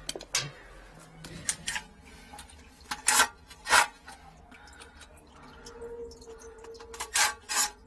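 Scattered sharp knocks and clicks, about seven in all, of a cordless drill/driver and hand tools being handled against metal pipe fittings, loudest around three seconds in and twice near the end.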